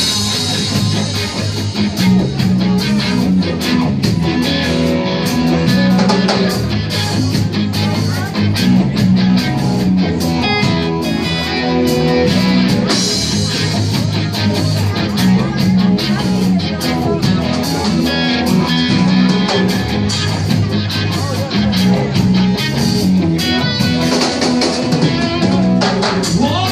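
A live rock band playing: electric guitars over a drum kit keeping a steady beat.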